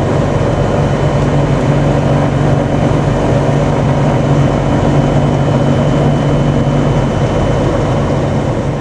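Royal Navy AgustaWestland Merlin helicopter hovering low and close: loud, steady low rotor noise with a thin high turbine whine.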